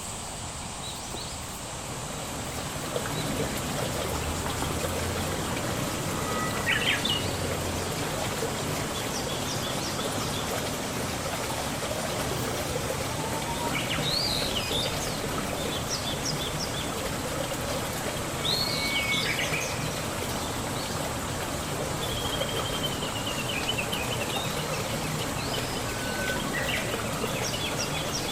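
Birds calling and chirping at intervals, with a rapid trill about three-quarters of the way through, over a steady background hiss.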